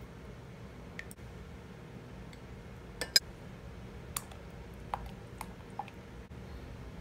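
A few light clicks and taps of a glass bowl against a white ceramic mug as thick white cream is tipped from the bowl into the tea. The sharpest click comes about three seconds in, over a steady low hum.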